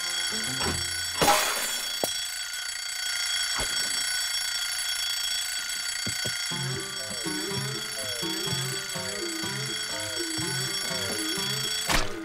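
Steady alarm-clock ringing, made in this cartoon by a parrot mimicking the clock, which carries on unbroken through the scene. A loud crash about a second in. Bouncy background music with a regular beat comes in about halfway.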